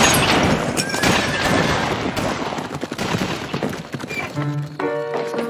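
A dense, noisy clatter for about four seconds, then piano music starts up.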